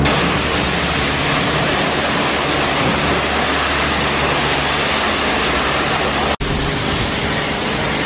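High-pressure water spraying from a self-service car-wash wand onto a car: a loud, steady hiss with a steady low hum underneath. It breaks off for an instant about six seconds in and carries on at once.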